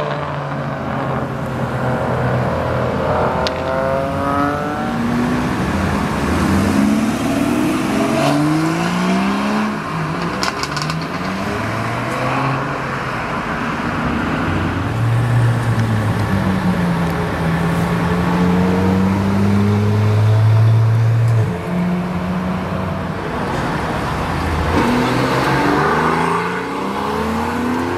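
Several sports cars accelerate hard past one after another, their engines revving up through the gears with rising pitch that drops back at each shift. Midway there is a stretch of steady engine note.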